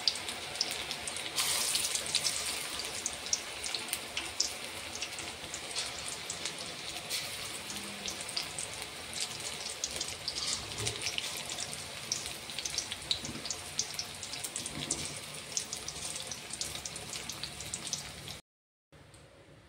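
Ridge gourd fritters (janhi pakoda) deep-frying in hot oil in an aluminium kadai: a steady sizzle full of small crackles and pops. It cuts off suddenly near the end.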